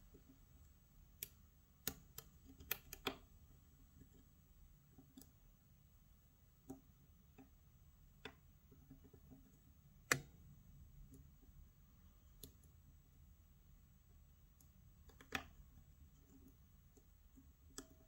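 A dozen or so faint, irregular clicks of a lock pick and tension wrench in a pin-tumbler lock cylinder, the pick tip poking blindly at the pins while searching for them; the loudest click comes about ten seconds in.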